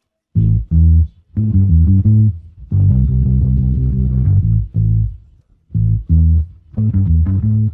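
Isolated bass guitar playing a bass line on its own, with no other instruments. It comes in about a third of a second in and plays in short phrases with brief gaps between them.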